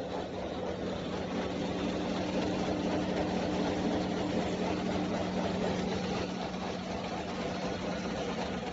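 Automatic face-mask making machine with its packaging unit running: a steady mechanical whir with a constant low hum, and a second, higher tone that joins about a second in and fades out around the middle.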